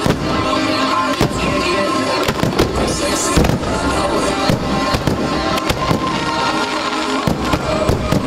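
Aerial firework shells bursting in a rapid, irregular series of sharp bangs, over music played with the display.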